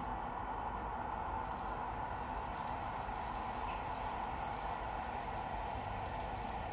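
Steady rushing hiss of wind-driven sand blowing across the ground in an artificial sandstorm.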